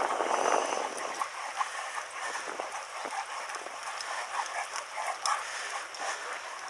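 A dog panting as it runs on a lead beside a moving bicycle, over a steady rush of wind and tyre noise.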